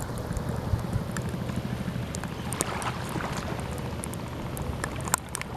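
Small waves lapping at a sandy riverbank over a steady low rumble, with scattered light ticks and splashes.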